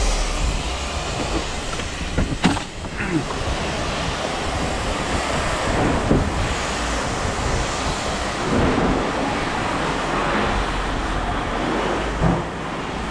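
Steady rumble and clatter of a scrap metal yard, with a sharp metallic knock about two and a half seconds in and a few smaller knocks after.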